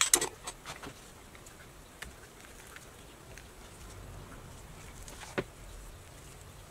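Light clicks and taps as squash halves and gloved hands are handled on a metal baking sheet: a quick cluster right at the start, then single taps about two seconds in and near the end, with faint rubbing between.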